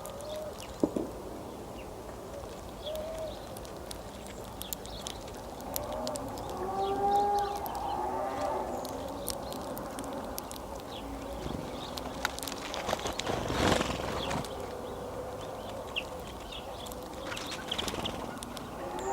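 A few drawn-out, low animal calls over a steady outdoor background, with scattered short, sharp clicks.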